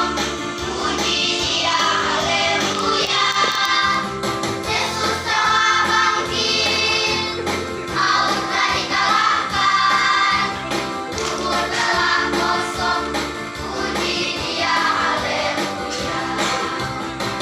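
Children's Sunday school choir singing a song together over instrumental accompaniment, in phrases of a couple of seconds each.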